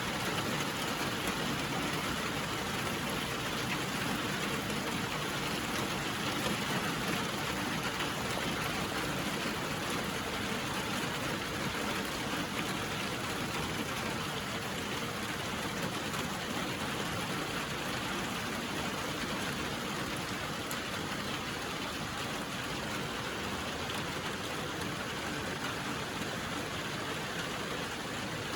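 Steady rainfall, an even, continuous hiss of rain with no breaks or distinct drops standing out.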